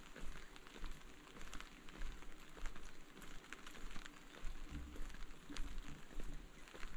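Rain falling, its drops ticking irregularly, with the soft thud of footsteps at an unhurried walking pace.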